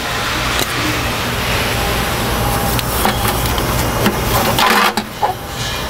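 Rustling and clicking of plastic wiring connectors and clips as the O2 sensor plugs are unhooked from under the car, with a louder burst of handling noise near the end, over a steady low shop hum.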